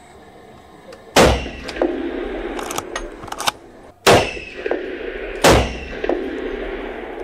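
Three shots from a straight-pull rifle in .300 Magnum, the first about a second in and two more about a second and a half apart past the middle, each a sharp crack that rings on in the reverberation of the indoor range. Lighter clicks fall between the first two shots.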